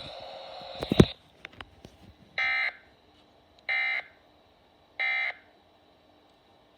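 Emergency Alert System end-of-message (EOM) tones from a radio broadcast: three short, identical digital data bursts about a second apart. Before them, radio hiss cuts off with a click about a second in.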